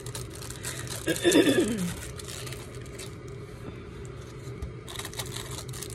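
Light rustling and tapping as small craft embellishments in clear plastic bags are handled. About a second in, a short wordless voice sound falls in pitch, and a steady low hum runs underneath.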